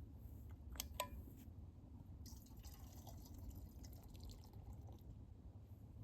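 Two light clicks about a second in, then a faint trickle of liquid lasting a few seconds, over a low steady rumble.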